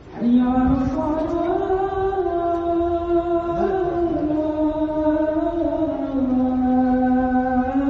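Islamic call to prayer (adhan) sung by a single male voice. It starts suddenly and carries on in long melismatic phrases, with held notes that waver and slide from one pitch to the next.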